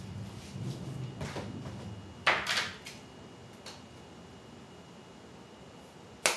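Kitchen handling sounds at the stove: a short rattling clatter about two seconds in, followed by a couple of lighter knocks, and a sharp click near the end, over a low rumble in the first couple of seconds.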